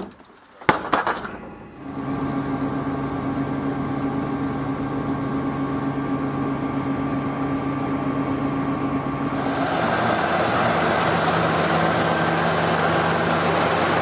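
A few sharp knocks about a second in, then a Claas Lexion combine harvester running steadily with a constant hum. About ten seconds in, the sound grows louder and fuller.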